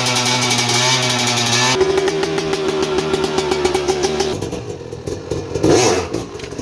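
Motorcycle engine running steadily. The sound changes abruptly about two seconds in, and near the end it rises and falls unevenly, as with revving.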